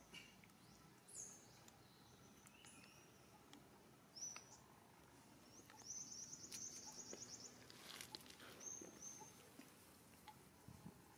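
Faint, high bird chirps and one short rapid trill over quiet outdoor ambience, with a few soft clicks.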